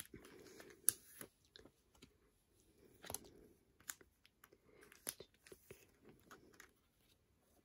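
Faint rustling of plastic binder sleeve pages as photo cards are slid out of their pockets, with a few sharp ticks and crackles of the plastic.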